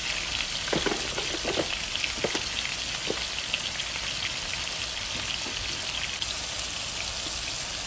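Tomatoes, cilantro and green chilies sizzling in oil in a frying pan: a steady frying hiss with many small crackles and pops.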